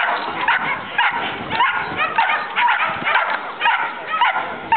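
A dog barking and yelping over and over, about two sharp yelps a second.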